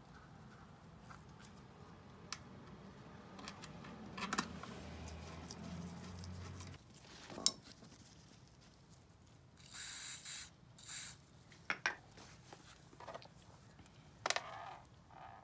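Faint hand-work sounds from screwing the motor into a pancake air compressor's plastic shroud: a screwdriver turning and scraping, with scattered clicks of small metal parts. Two short hissing bursts come about two-thirds of the way through.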